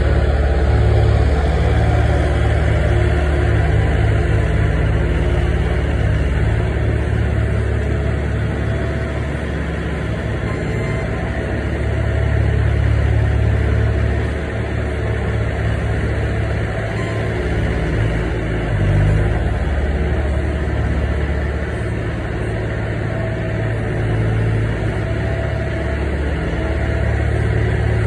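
Skid-steer loader's engine running steadily as it works with its pallet forks, the loudness swelling and easing a little as it moves.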